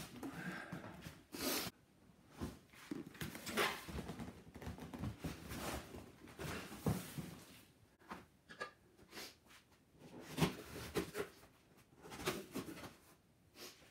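A large cardboard guitar box being handled, with irregular scrapes, knocks and rustles of cardboard as it is moved and laid down. Near the end its packing tape is cut open.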